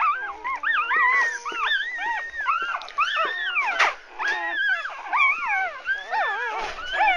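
A litter of newborn puppies whining and squealing together, many high, arching cries overlapping with no pause.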